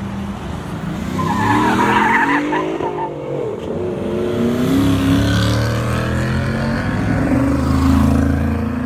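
Car engines accelerating hard past the microphone: one revs up with its pitch climbing over about two seconds, alongside a brief screech of tyres, then a second, deeper engine comes up and pulls strongly until the end.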